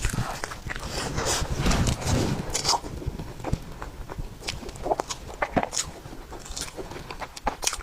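Close-miked chewing of soft tiger skin cake roll, with irregular wet mouth clicks and smacks.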